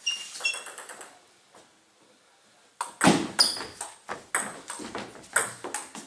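Table tennis ball clicking in a quick run of bounces at the start. After a short pause comes a rally from about three seconds in: sharp, evenly paced clicks of the ball on bats and table, two to three a second.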